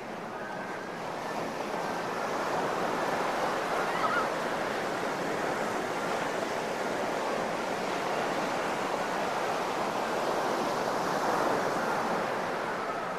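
Ocean surf breaking on a sandy beach: a steady wash of waves that swells about two seconds in and again near the end.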